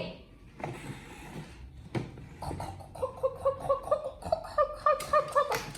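A quick series of short, same-pitched animal calls, about four a second, starting about two and a half seconds in and running a few seconds.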